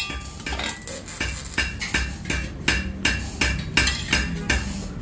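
Pliers scraping and clinking against the inside of a titanium Honda CBR1000 racing muffler in quick, irregular strokes as leftover packing fibres are pulled out.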